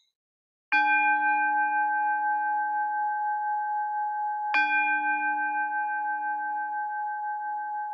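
Buddhist temple bell struck twice with a wooden striker, about four seconds apart, each stroke ringing on at several steady pitches and slowly fading. It is the kansho, tolled to open the service and call for quiet.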